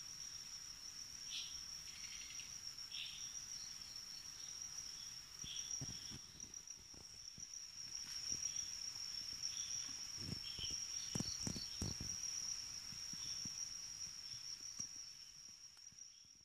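Forest insects, cricket-like, keeping up one unbroken high-pitched trill, with shorter chirps from other insects repeating underneath. A few soft low thumps come about ten to twelve seconds in.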